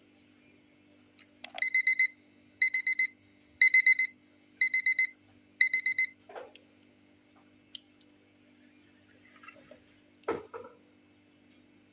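Electronic alarm beeping in five quick bursts of high beeps, about one burst a second, stopping about six seconds in. A single knock follows near the end.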